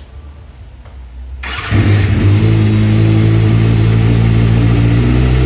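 2006 Kawasaki Ninja ZX-6R's inline-four engine starting about a second and a half in, then running steadily, after its top-end rebuild with the camshafts refitted.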